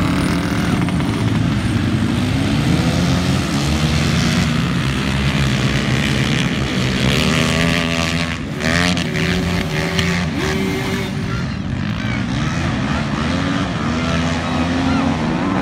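Engines of several racing quads (ATVs) revving together over a dirt track, their pitches rising and falling as they speed up and back off, with a sharp rev-up about eight seconds in.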